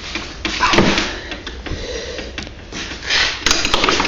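Metal hand tools working on a bolt deep in a snowmobile engine bay: scraping and rustling, then a quick run of sharp clicks near the end, typical of a socket wrench being fitted and worked.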